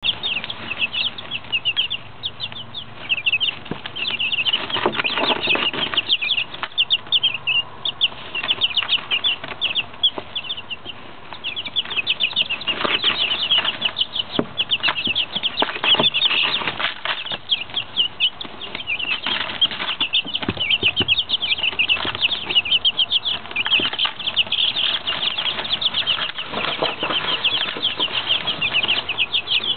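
A flock of week-old Jersey Giant chicks peeping nonstop, many short high peeps overlapping, with scattered scratching and rustling in pine shavings.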